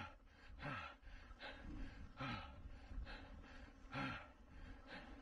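A mountain biker panting hard from exertion: a heavy voiced gasp roughly every three-quarters of a second, each one falling in pitch.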